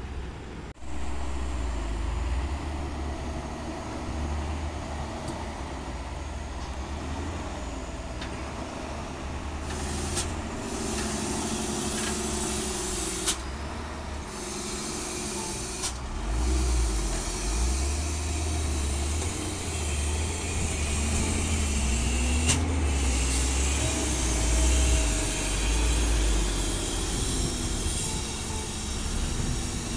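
Diesel engine of a heavy three-axle dump truck loaded with sand, running low and steady as the truck crawls over a rutted dirt track. A steady hiss sits over it from about a third of the way in.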